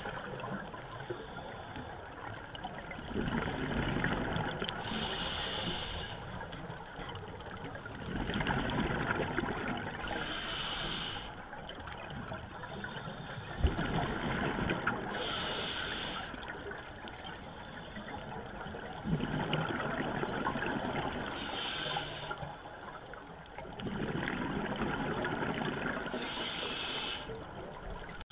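Scuba diver breathing through a regulator underwater: about five slow breath cycles, each a short hiss as the regulator delivers air on the inhale, then a few seconds of bubbling as the exhaled air escapes. A brief knock about halfway through.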